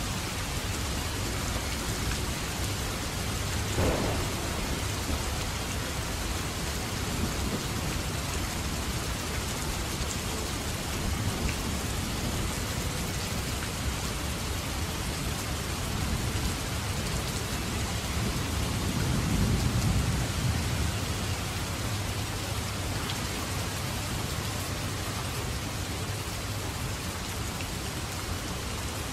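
Heavy downpour of rain falling steadily, with thunder: a short sharp crack about four seconds in, and a low rumble that swells and fades about two-thirds of the way through, the loudest moment.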